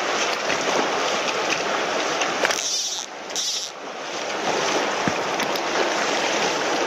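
Mountain stream running high, a steady rush of water over shallow riffles, dipping briefly about three seconds in.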